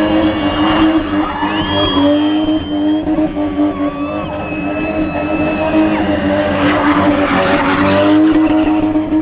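Car spinning doughnuts with the engine held at high revs and the rear tyres squealing in long, sustained high tones that shift in pitch every second or two.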